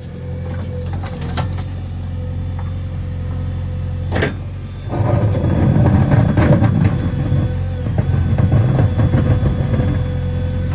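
Diesel engine of a JCB 3DX backhoe loader running steadily, with a sharp clank about four seconds in; from about five seconds in it grows louder and rougher.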